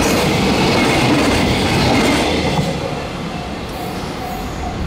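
Tail end of a freight train of container wagons passing close by, wheels running on the rails. The noise eases off about three seconds in as the last wagon goes by, leaving a quieter after-rumble.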